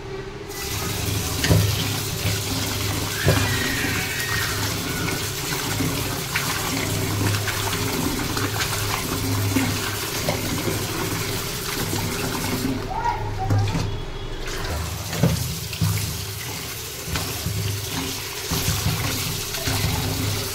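Tap water running and splashing into a steel colander of chopped snail meat in a stainless steel sink, with a hand stirring and rubbing the pieces as they are rinsed.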